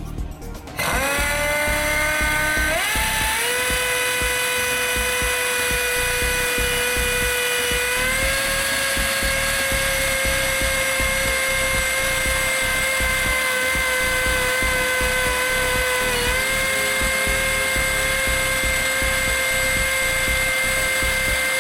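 Pneumatic air motor driving a ship's accommodation ladder winch, lowering the ladder: a high whine that starts about a second in, climbs quickly in pitch as the motor spins up, then holds steady, with a slight rise about eight seconds in and a brief dip near sixteen seconds.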